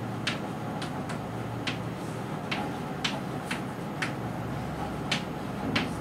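Chalk writing on a blackboard: irregular sharp ticks and taps as each stroke lands, about nine in six seconds.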